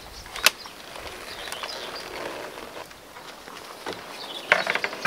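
Camping gear being handled and pulled out of a pickup truck's canopy: a sharp knock about half a second in, light rustling and clicks, and a quick run of clicks and rattles near the end.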